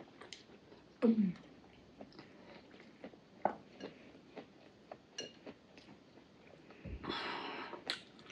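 Quiet mouth sounds of people eating rice, chewing and smacking, with scattered light clicks of metal spoons on plates. About a second in there is a short voiced murmur that slides down in pitch.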